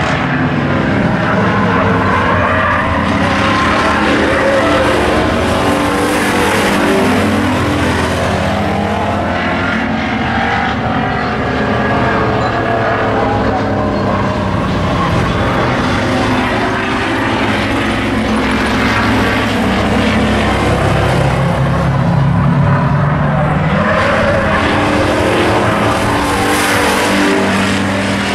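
Hobby stock race car engines running hard around the track, their notes rising and falling as the cars accelerate and lift, with more than one car heard at once.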